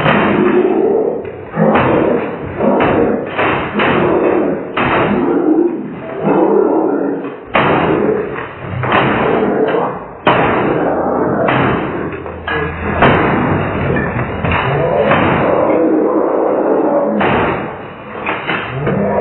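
Slowed-down recording of a boy raging at a computer: deep, drawn-out yelling broken by repeated sharp bangs of things slammed on the desk.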